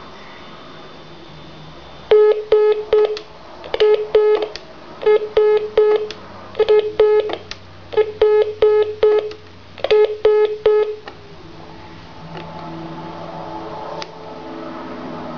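Telephone line signal: six rapid groups of four or five short beeps each, on one tone just under 500 Hz, over a faint line hiss. It is heard on the line as interference.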